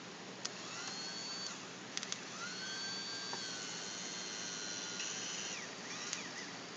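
Electric power trim-and-tilt motor on an OMC outboard whining: a short run about half a second in, then a longer run from about two seconds that rises, holds steady and winds down near the end, with a few clicks.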